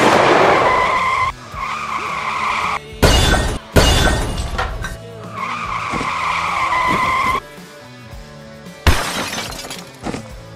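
Car skid and crash sound effects: a high tyre screech in stretches, two heavy crashes with shattering glass about three seconds in, and another sharp impact near the end, over music.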